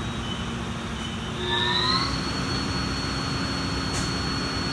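800 hp vertical US Motors electric motor running on its first start-up after a rewind: a steady hum with a high whine that rises in pitch and gets louder about a second and a half in, then holds a steady tone as the motor comes up to speed.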